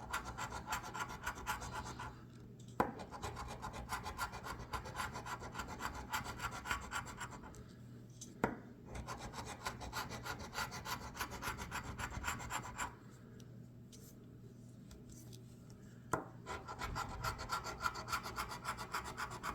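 Scratch-off lottery ticket being scraped in quick, rapid strokes as the coating comes off, with short breaks about two seconds in and for about three seconds near the end, and a few sharp taps.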